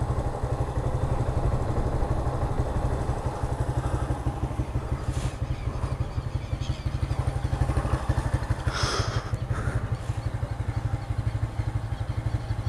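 Honda CB motorcycle engine idling steadily with an even low pulse. A short, higher-pitched sound breaks in briefly about nine seconds in.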